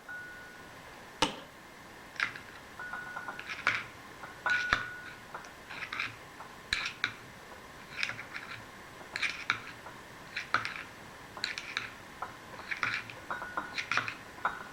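Bearings being worked off steel shafts by hand: irregular light metallic clicks and clinks, about one every half second to second, a few with a brief ringing tone.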